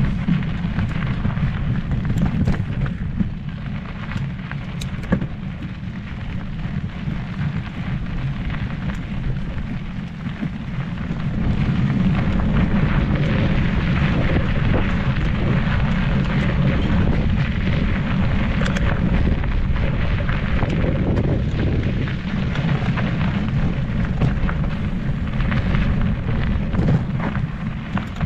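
Wind buffeting the microphone of a camera on a moving mountain bike, a heavy low rumble, with the tyres running over a dry dirt and gravel trail and scattered clicks and rattles from the bike. It grows louder from about eleven seconds in.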